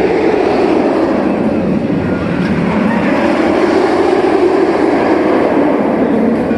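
Roller coaster train running along its steel track: a loud, steady rumble.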